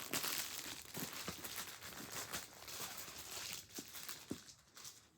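Packaging crinkling and rustling with small crackles as it is handled and opened, dying away near the end.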